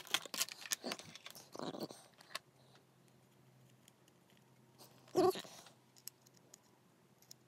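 Small hard objects and a cable clicking and rattling on a wooden desk as they are handled, for the first couple of seconds. Then a faint steady low hum, broken about five seconds in by one short vocal sound.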